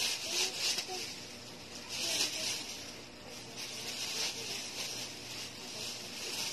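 Rustling from stuffed toys being handled and sorted, coming in uneven bursts every second or so.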